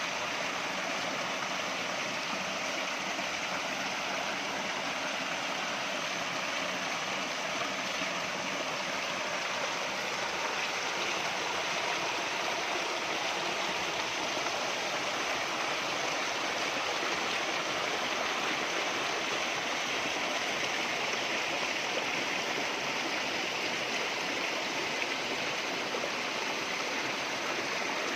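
Running water of a natural stream, rushing steadily with an even hiss.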